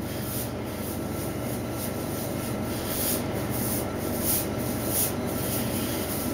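A washing machine's steady rumble, with soft repeated swishes of hands rubbing and scrunching cream through curly hair.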